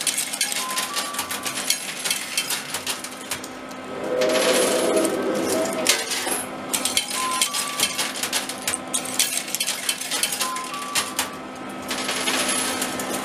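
Metal coins clinking and sliding on a coin pusher machine, with rapid irregular clicks as coins drop onto the pile and the pusher shelf shoves them along. There is a louder rattling stretch about four seconds in.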